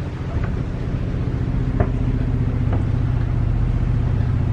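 An engine running steadily with a low, even drone inside the boat's cabin, with a few light clicks or knocks over it.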